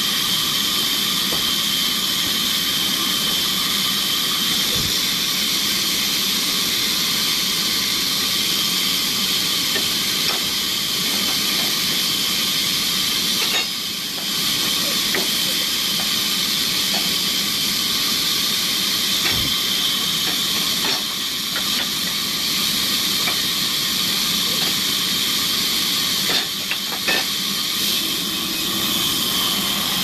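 Large sawmill band saw running steadily and cutting lengthwise through a log on the carriage: a continuous, high-pitched rasping noise, with a few light knocks.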